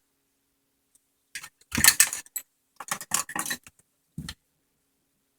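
Small hard parts clinking and clattering as they are handled and moved on a work surface, in a few short spells, the loudest about two seconds in.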